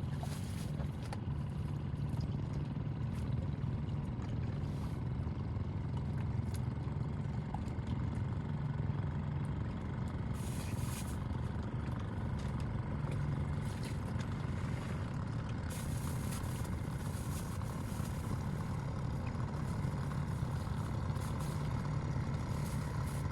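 Small boat's engine running steadily at a constant speed, a low even drone with no change in pitch.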